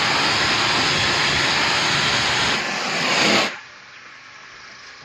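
High-pressure washer jet spraying water onto a car: a loud, steady hiss that drops away abruptly about three and a half seconds in, leaving only a faint hiss.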